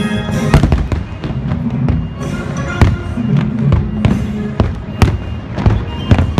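Fireworks shells bursting in a rapid run of sharp bangs, some loud and some distant, over the fireworks show's music.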